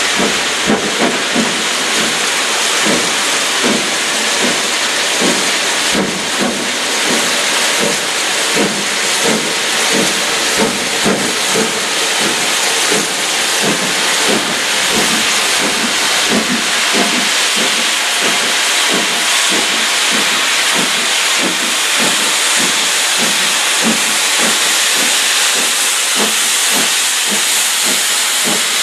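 BR WD Austerity 2-8-0 steam locomotive working hard up a steep bank with a loaded freight, its exhaust beating about twice a second over a steady hiss of steam, growing louder as it draws near.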